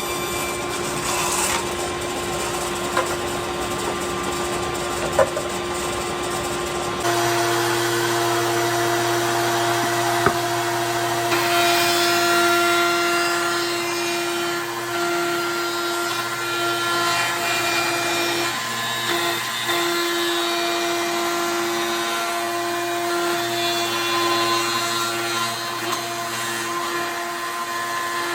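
A woodworking power tool running steadily with a constant hum and whine; its tone shifts about seven seconds in.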